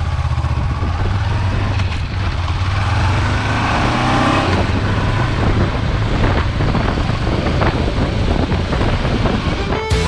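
Honda CB500X parallel-twin engine running as the motorcycle pulls away, its pitch rising as it accelerates, with wind noise over the microphone. Music comes in suddenly near the end.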